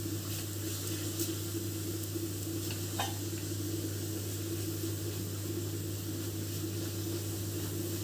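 Onion-paste masala sizzling softly as it fries in oil in a wok, being browned until it turns red, with occasional faint scrapes of a silicone spatula. A steady low hum runs underneath.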